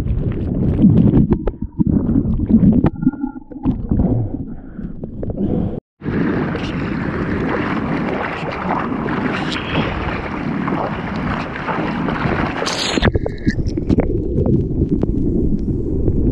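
Seawater churning against a surfer's point-of-view camera, a low muffled rumble while the camera is in the murky water. After a sudden cut about six seconds in comes steady splashing and sloshing as the surfer paddles through the water.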